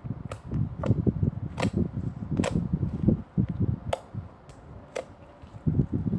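Slime being squeezed and worked by hand, squelching irregularly, with several sharp pops of trapped air bubbles and a brief quieter pause.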